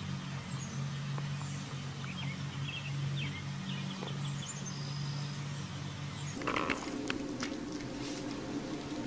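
A steady low hum, with faint bird chirps above it, for about six seconds. Then the background changes abruptly to a quieter room tone with a few sharp clicks.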